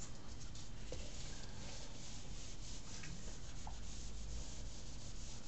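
A whiteboard being wiped with an eraser: continuous, even rubbing across the board's surface as marker is erased.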